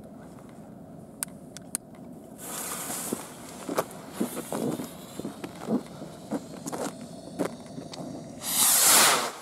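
Nico Metalhead SP-700 firework rocket lifting off with a hiss about two and a half seconds in, followed by scattered clicks and pops and a loud rushing hiss near the end.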